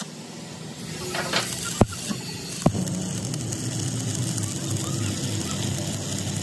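Steady background noise and hum with two sharp knocks a little under a second apart, about two seconds in.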